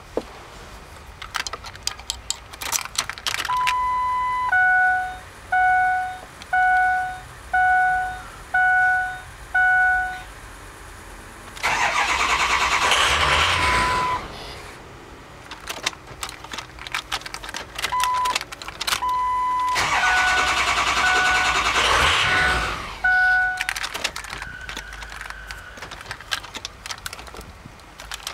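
Ford 6.0-litre Power Stroke diesel being cranked twice by its starter, about 2.5 s each time, without catching: a hard-start condition. Dash warning chimes beep repeatedly before the first attempt and again over the second.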